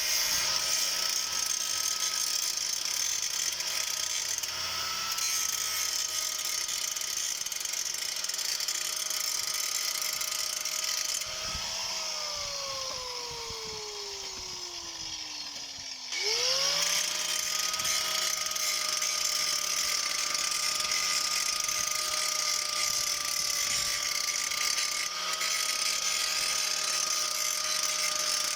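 Handheld electric power tool running at a steady high whine with gear noise. About 12 seconds in it is switched off and winds down in falling pitch, then it is started again about 16 seconds in and spins back up to speed.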